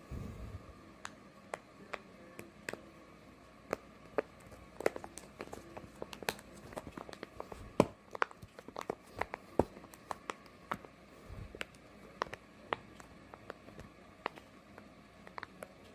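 Fidget toys being handled, giving irregular sharp clicks and taps, with a dull bump at the start and another about eleven seconds in.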